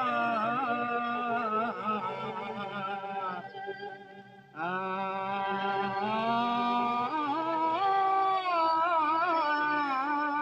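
A Chinese song with wavering held notes, played through a repaired Telefunken valve set with a single ECL86 valve and a selenium rectifier on test. The singing drops away briefly about four seconds in, then comes back.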